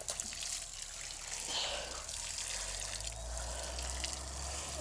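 Water sprinkling from a plastic watering can's rose onto loose garden soil, a steady trickle, over a low rumble that grows louder in the second half.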